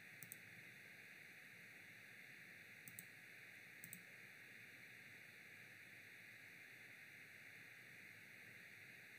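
Near silence: faint steady hiss of room tone, with three soft computer mouse clicks, each a quick double tick, just after the start, about three seconds in and about four seconds in.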